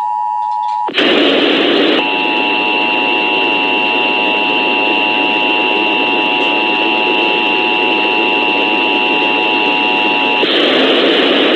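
The end of an Emergency Alert System attention signal, a steady two-tone sound, cuts off about a second in. Loud hissing radio static follows. Through most of it runs a steady high whistle with a cluster of lower steady tones beneath it, and plain hiss returns near the end.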